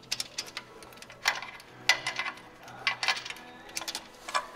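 Steel wrench clinking against the bolts and valve-train parts of an open Caterpillar 3406A diesel engine: a string of sharp metallic clinks and taps, the loudest about a second and a half, two and three seconds in.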